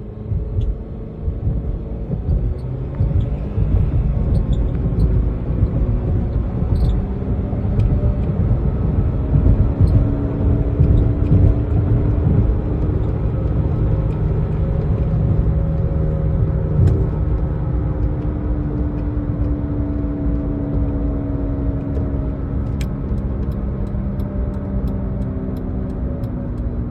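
Jeep Patriot at road speed heard from inside the cabin: a steady low rumble with a droning, whirling growl like an airplane taking off, from a bad left rear wheel bearing. The drone climbs slowly in pitch as the car speeds up, then sinks again near the end.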